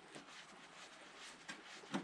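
Faint handling noise: a few light clicks and a sharper knock near the end, over a low hiss.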